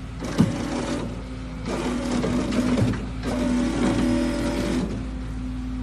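Lamborghini Huracán's V10 engine running at a steady idle, with a single knock about half a second in.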